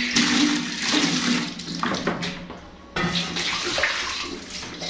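Water running from a tap or hose and splashing across a tiled floor toward a drain, rinsing away blood. The flow dips briefly just before three seconds in, then picks up again.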